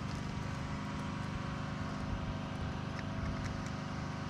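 Steady mechanical hum with a low pitched drone, like a motor or engine running continuously.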